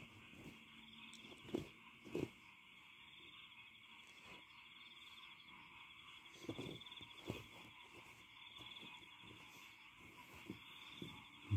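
A faint, steady, high-pitched chirring chorus runs throughout. It is broken by a few soft thumps and rustles from handling, about one and a half and two seconds in, around six to seven seconds in, and near the end.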